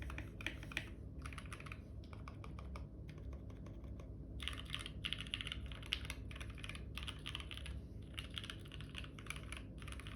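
Typing on a custom 60% mechanical keyboard with lubed Gateron Red linear switches on an aluminium plate, in fast runs of soft keystrokes with short pauses.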